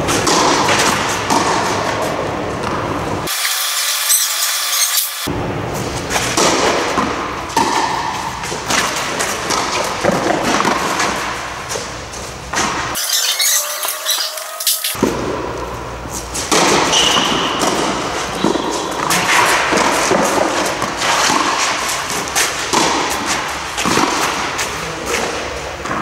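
Background music playing loudly and without a break, its bass dropping out suddenly twice for about two seconds at a time.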